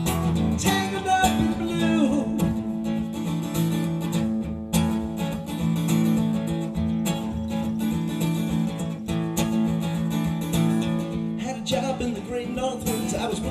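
Acoustic guitar strummed through an instrumental break between sung verses of a folk-rock song.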